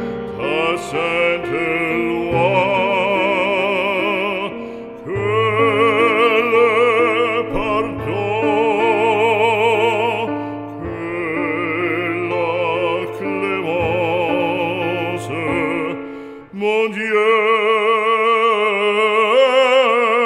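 Background music: a French hymn sung operatically, long held notes with wide vibrato over sustained instrumental accompaniment. There is a short break about sixteen and a half seconds in, and the singing resumes without the low accompaniment.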